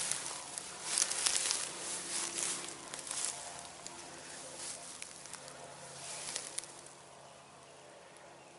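Footsteps and rustling through dry grass and weeds, an irregular crackle of stalks underfoot that dies away about seven seconds in.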